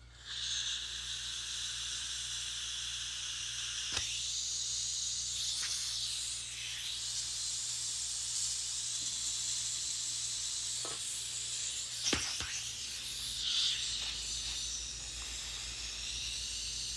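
Pressurised gas hissing steadily out of an airsoft gas pistol magazine as it is charged, with a few short clicks about 4 and 12 seconds in. The gas keeps escaping, a leak the owner blames on a broken magazine.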